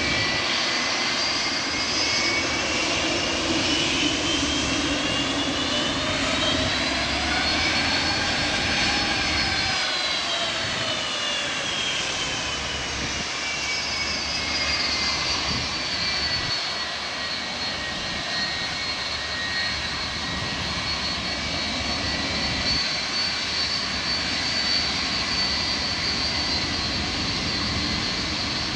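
Boeing 757-224's Pratt & Whitney PW2000 turbofans running at taxi power: a steady rumble under a high whine whose pitch rises and then falls in the first half as the jet moves and turns, then holds steady.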